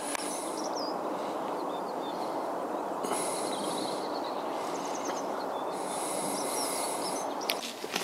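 Outdoor estuary ambience: a steady rushing background noise with many faint, short, high bird chirps and twitters scattered through it. The rushing background drops away suddenly near the end.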